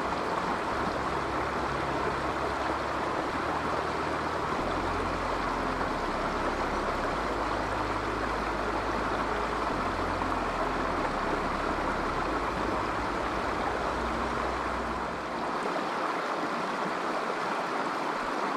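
Shallow river running steadily over rocks, an even rushing of water. A low rumble sits underneath and drops away near the end.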